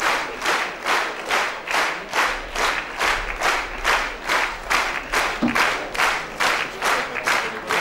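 Theatre audience clapping in unison, a steady rhythmic beat of about two and a half claps a second.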